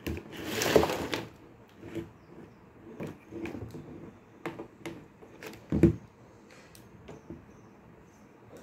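Scattered clicks, taps and knocks of small makeup containers and caps being handled and set down on a desk, with a short rustle about a second in and a louder knock just before six seconds in.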